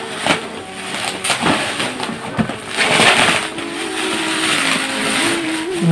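Plastic bubble wrap being pulled and crumpled off a gift hamper, rustling and crinkling with scattered sharp crackles. It is loudest about three seconds in.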